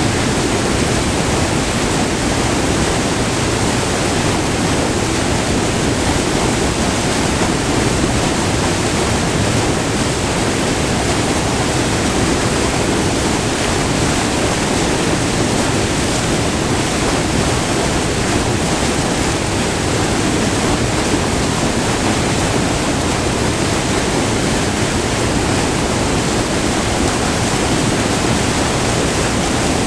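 Multi-tiered waterfall on a small river, white water pouring and splashing over rock ledges close by. A steady, loud rush with no breaks.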